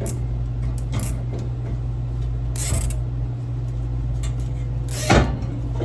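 A long nylon cable tie being handled and cinched: scattered light clicks, a short rasp of the strap being pulled through near the middle, and a louder knock about five seconds in, over a steady low hum.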